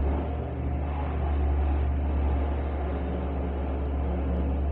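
Airplane passing over the roof: a steady low drone with a broad rushing noise over it.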